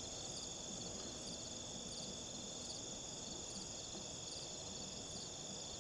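Evening chorus of crickets and other insects: a steady high-pitched trill with shorter chirps repeating over it.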